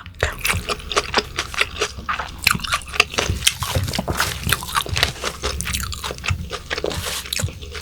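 Close-miked chewing of a mouthful of raw yellowtail sashimi wrapped in greens, with wet smacks and crisp crunching from the leaves, packed tightly throughout.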